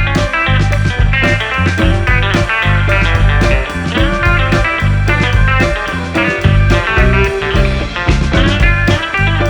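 Background rock music with electric guitar over a steady bass and drum beat.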